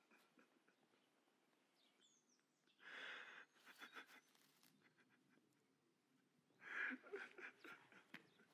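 Very quiet: a man's faint breathy gasps of anguish, twice, about three and seven seconds in, with a few faint bird chirps.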